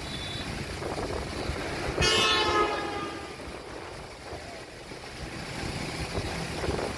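Heavy earthmoving machinery rumbling, with a loud horn-like blast about two seconds in that lasts about a second and fades away.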